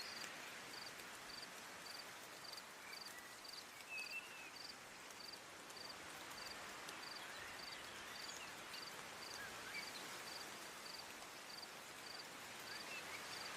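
Faint background with an insect chirping steadily, a short high chirp about three times every two seconds, over a soft hiss, with a few faint short calls now and then.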